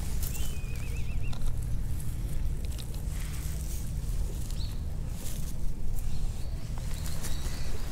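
Outdoor harbour ambience: a steady low rumble with scattered light clicks and rustles in dry grass, and a short wavering bird call about half a second in.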